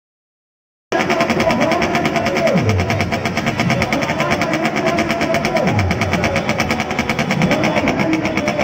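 Motorcycle engine idling steadily, a fast even run of firing strokes that starts abruptly about a second in.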